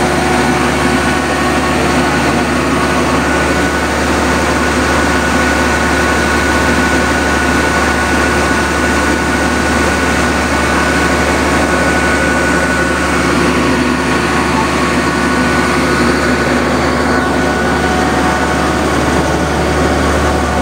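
Kubota combine harvester running steadily while harvesting rice paddy: a constant diesel engine drone with a thin steady high whine from the machinery.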